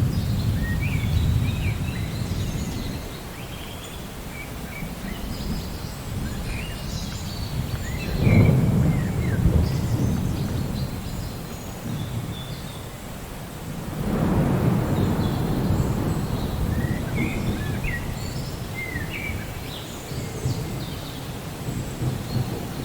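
Rain falling steadily while thunder rumbles in slow rolls: one fading near the start, a sharper clap about eight seconds in, and another long roll about fourteen seconds in. Birds chirp in short calls throughout.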